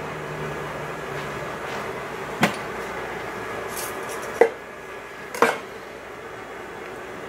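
Three sharp clinks of kitchenware, a dish or utensil knocking on a hard surface: one about two and a half seconds in, then two close together a second apart, over a steady background hum.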